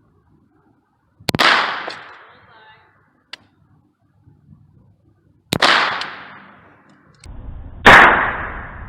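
Three single shots from an AR-15 pistol firing .22 LR through a conversion kit, about four seconds and then two and a half seconds apart, each with a short echoing tail; the last is the loudest. A low steady rumble sets in shortly before the last shot.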